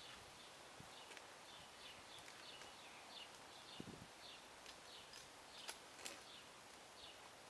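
Near silence with faint, repeated short bird chirps, and a couple of soft thuds about four and six seconds in.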